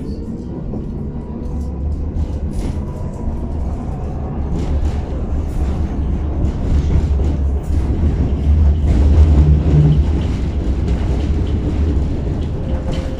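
Tatra T6B5 tram running between stops: a steady low rumble of wheels on rails, with scattered clicks and knocks, growing louder toward the middle.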